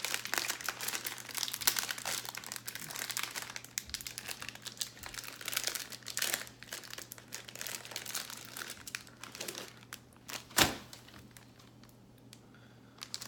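Plastic packaging of a pack of Peeps marshmallows crinkling and tearing as it is opened, a dense crackle for about ten seconds. A single sharp snap about ten and a half seconds in, then the crinkling dies down.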